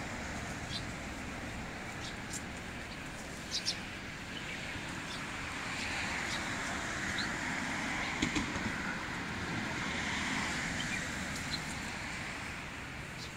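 City street traffic noise: a steady hum of passing vehicles that swells for a few seconds in the middle, with a few short sharp clicks and knocks about three and a half and eight seconds in.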